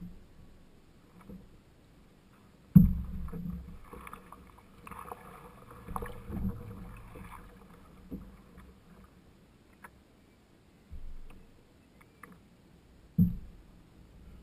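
Canoe being paddled, picked up through the hull: several sharp knocks of the paddle and strokes against the canoe, the loudest about three seconds in and again near the end, with softer water swishing and dripping between.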